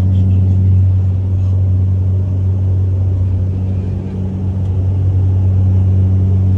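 Steady low drone of a small propeller aircraft's engines and propellers in cruise flight, heard inside the cabin, with a deep, even hum.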